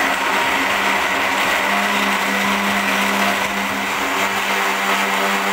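Electric countertop blender running steadily with a steady motor hum, blending ice cubes, mint leaves, lemon juice and Sprite into a frothy drink.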